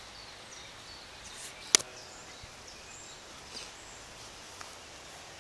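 Quiet garden ambience with a few faint, short bird chirps, broken by a single sharp click a little under two seconds in, the loudest sound.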